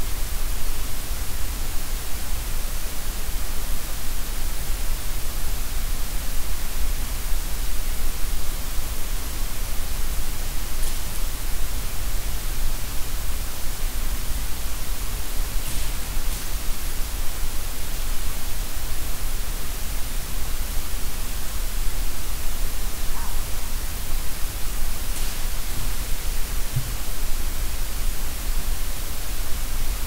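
Steady hiss of a digital recorder's night-time field recording, with a low rumble beneath it and a few faint, brief ticks.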